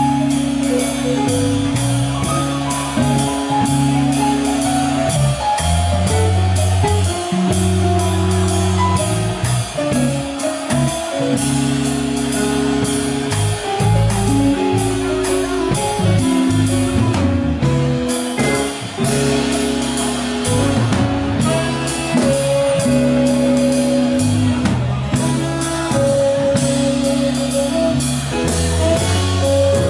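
Live band playing on electric guitar and drum kit.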